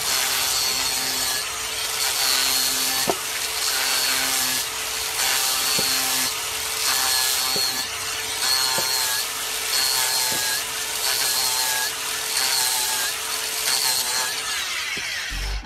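Angle grinder running with a steady high whine as its disc grinds into the end grain of a log, hollowing it out. The whine and grinding noise rise and fall a little as the disc is pressed in and moved across the wood, with a few small ticks from chips.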